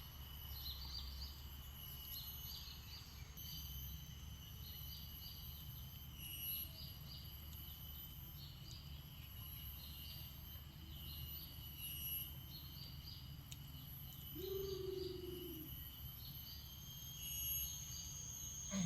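Outdoor countryside ambience: insects trill steadily at a high pitch, quick chirps repeat every half second or so, and a low rumble runs underneath. One short, lower call sounds about fifteen seconds in.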